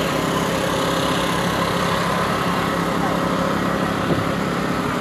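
A small engine running steadily with an even hum, under the chatter of people around it.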